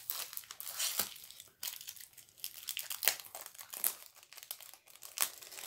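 Packaging of a diamond painting kit crinkling and rustling as it is handled and opened, with irregular sharp crackles.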